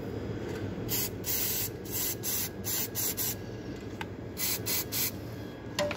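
Aerosol can of brake cleaner spraying in a series of short hissing spurts, starting about a second in, onto an oily engine to wash off leaked oil grime.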